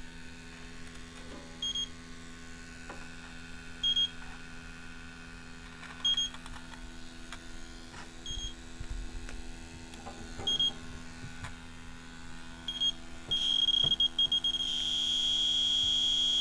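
Electronic refrigerant leak detector giving a single high beep about every two seconds, then beeping rapidly near the end and going into a continuous alarm tone as it picks up refrigerant leaking from the evaporator coil. A low steady hum runs underneath.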